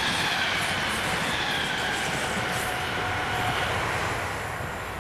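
Two coupled ScotRail Class 320 electric multiple units passing on the line: the running noise of wheels on rails with a faint electric whine gliding slightly downward, getting quieter near the end.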